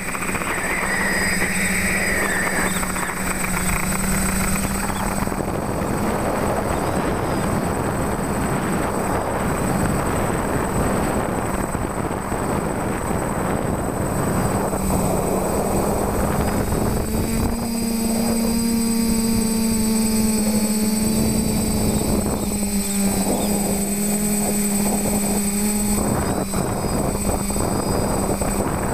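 TBS Discovery quadcopter's electric motors and propellers running steadily in flight, heard from its onboard camera with wind rushing past. The motor hum rises a little in pitch about two-thirds of the way through.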